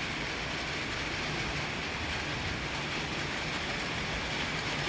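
Rain falling steadily in a thunderstorm, an even hiss with no breaks.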